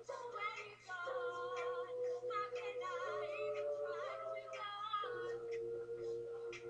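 All-female a cappella group singing: a lead voice over backing voices holding sustained chords, which shift a few times, with short sharp percussive ticks in between.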